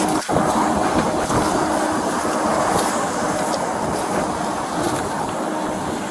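Steady rumble of diesel heavy equipment and fire apparatus engines running, with a faint steady hum.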